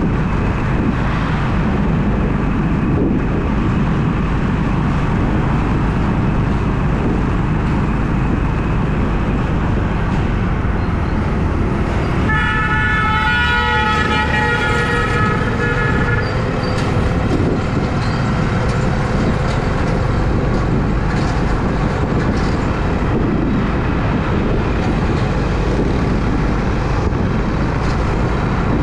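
Steady rumble of a car driving, heard through a dash cam, with a horn sounding for about four seconds roughly twelve seconds in.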